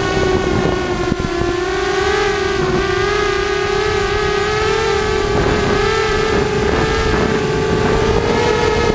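Brushless motors and propellers of a ZMR250 racing quadcopter in flight, giving a steady whine whose pitch wavers slightly with throttle and rises a little near the end. Rumbling wind noise sits underneath.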